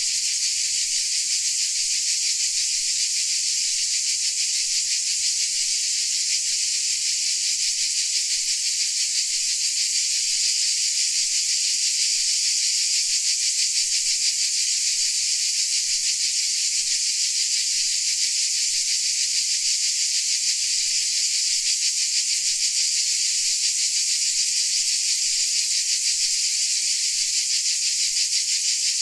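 Dense, steady chorus of crickets, a continuous high-pitched shrill made of many fast-pulsing calls blending together without a break.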